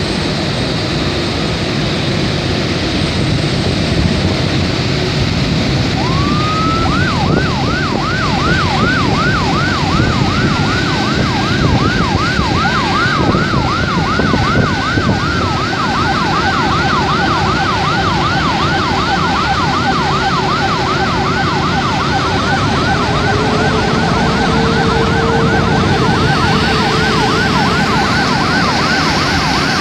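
Airport fire-truck sirens starting about six seconds in, wailing up and down and then settling into a fast, steady yelp, with more than one siren overlapping at first, as the trucks line up for a water-salute to an arriving Airbus A380. A loud, steady rumbling noise runs underneath.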